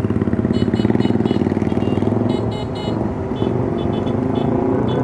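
Motorcycle engine running steadily with a fast, even pulsing beat, with groups of short high-pitched chirps sounding over it.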